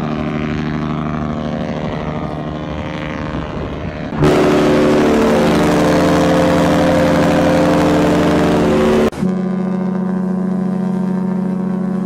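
Three cruise-ship horns sound one after another, each a long steady blast. The first is Freedom of the Seas. Liberty of the Seas takes over about four seconds in, louder and with a hiss over it. Oasis of the Seas follows about nine seconds in.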